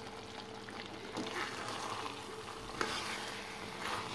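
Hot oil tempering of cumin, dried red chillies and curry leaves sizzling as it is stirred into thick mutton curry in a pressure cooker, with a few light clicks of the spoon against the pot.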